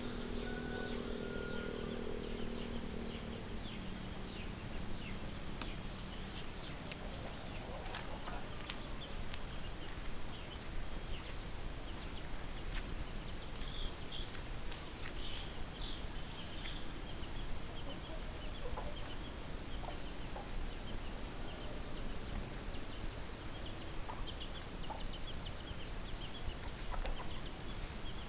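Chickens clucking with many short, high-pitched calls scattered throughout, over a steady background hiss. A low steady hum sounds for the first few seconds.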